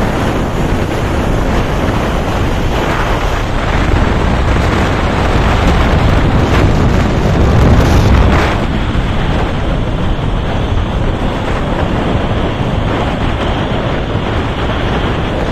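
Wind buffeting a phone microphone on a motorcycle moving at speed, a dense rushing noise that swells for a few seconds in the middle.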